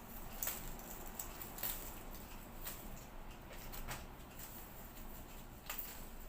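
Irregular light snaps and rustles, one or two a second, as oranges are picked and handled.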